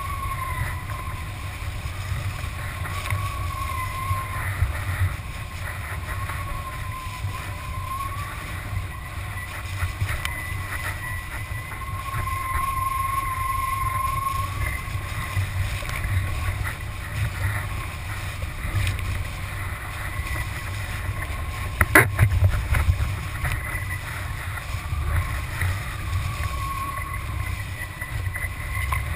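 Kiteboard planing across choppy sea water, with wind buffeting the microphone and water rushing and splashing along the board. A faint high whistle wavers up and down in pitch, and a single sharp smack comes about three-quarters of the way through.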